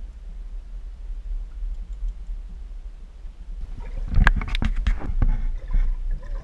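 A steady low rumble, then from a bit past the halfway point a run of sharp knocks and clicks with water splashing and gurgling as a waterproof action camera is handled and dipped into the pond beside a small boat.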